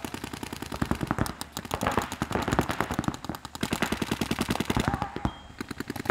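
Paintball markers firing rapid strings of shots, many pops a second and often overlapping, with no let-up through the stretch.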